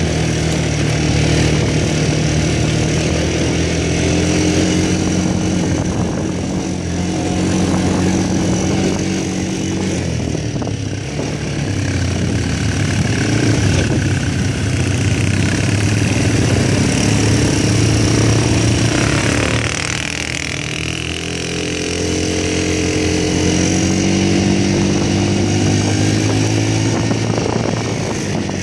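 Quad bike (ATV) engine running steadily while riding on sand. About two-thirds of the way through it drops in pitch, then rises again as it picks up speed.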